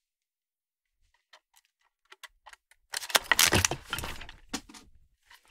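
Aluminium boom pole segments being worked and slid together by hand: a few scattered clicks, then a burst of metallic rattling and clatter about three seconds in, with a few more clicks as it dies down.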